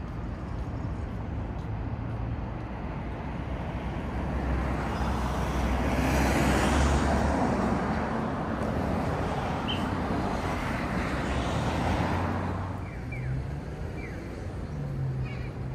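City street traffic: vehicles passing over a steady low engine hum. The noise swells to its loudest about six to seven seconds in, swells again around twelve seconds, then eases off.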